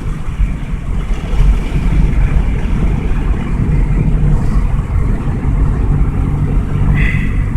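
Steady low road and engine rumble inside a moving 1995 Toyota Camry's cabin, with no knock heard.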